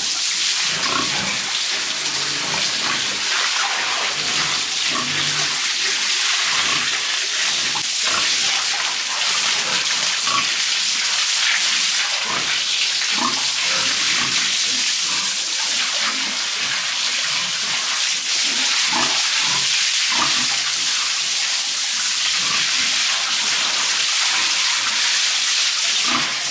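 Water spraying steadily while pigs grunt now and then, as a pigsty is washed down and the pigs bathed.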